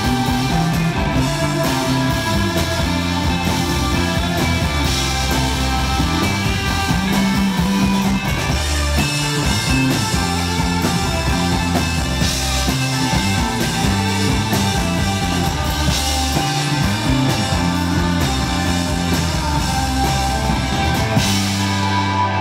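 A psychedelic rock band playing live through a PA: electric bass, electric guitar and drum kit, loud and continuous. The high cymbal wash stops about a second before the end.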